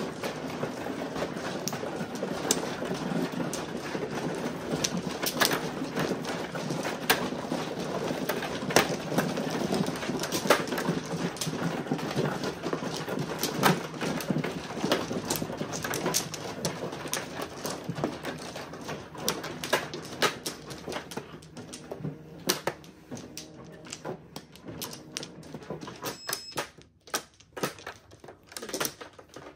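Mahjong tiles clattering for about twenty seconds, thinning out to scattered clicks of single tiles being set down near the end.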